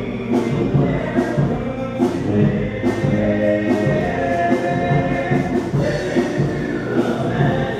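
Music with choir-like singing over a steady beat.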